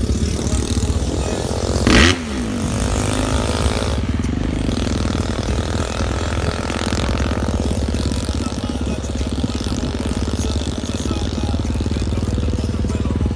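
Motorcycle engine running close to a moving car, with road and wind noise through the open car window. About two seconds in there is a short loud burst as the bike goes past close by, its pitch gliding, then the engine runs on steadily, rising slightly in pitch near the end.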